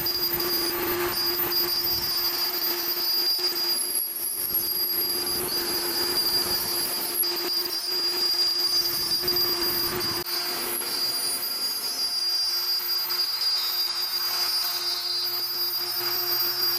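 CNC router spindle running with a steady high whine while the bit cuts wood, the cutting noise thinning about twelve seconds in.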